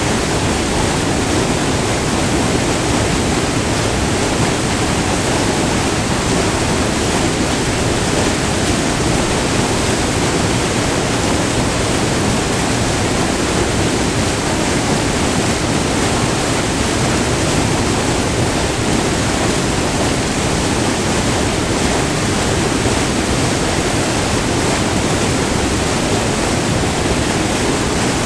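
Small multi-tiered river waterfall: white water pouring and splashing over rock ledges in a steady, dense rush.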